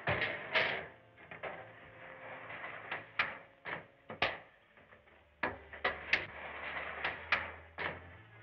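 A dozen or so irregular wooden knocks and clatters from a wooden cart being pulled along, with no steady rhythm.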